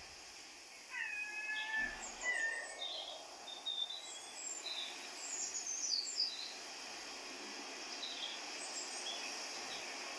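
Birds chirping and calling in short high bursts over a steady hiss of outdoor ambience. About a second in there is a longer held call of under a second.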